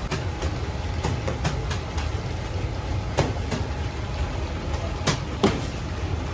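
Bakery machinery running with a steady low rumble, with a few sharp knocks and clicks on top, the loudest two about five seconds in.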